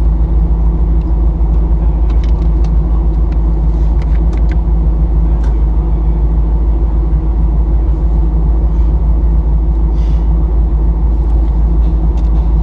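Jeep Wrangler's engine idling steadily with a low rumble, heard from inside the cab, with a few faint clicks.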